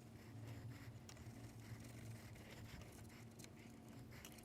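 Near silence: a faint steady hum with light, scattered rubbing and ticking sounds, from a cloth wiping old thermal paste off the CPU with isopropyl alcohol.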